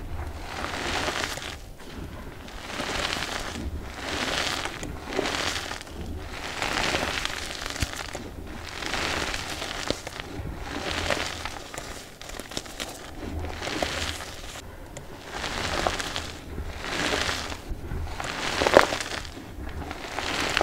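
Hands squeezing and crumbling lumps of reformed gym chalk in loose chalk powder: a dry crunching and crackling, in repeated squeezes about one a second, with a sharper crack near the end.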